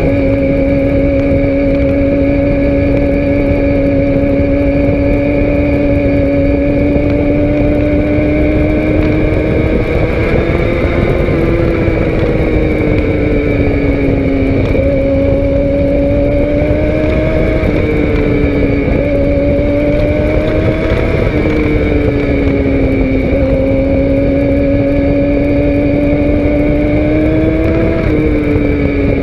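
Sport motorcycle engine running under way, recorded on the bike with wind rush on the microphone. The engine note holds steady for the first third, then rises and falls through the bends with several sudden drops in pitch.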